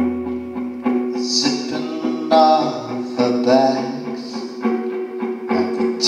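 An acoustic guitar and an electric guitar play a slow song together, with a man's voice singing over them.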